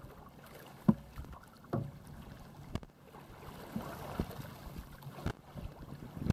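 Choppy water splashing and slapping against a sea kayak, short splashy knocks about once a second over a steady wash of water and wind; the loudest knock comes about a second in.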